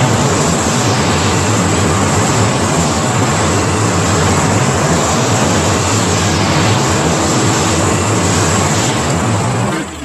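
Custom Godzilla sound effect: a loud, steady, rushing roar of dense noise over a deep hum, which cuts off suddenly near the end.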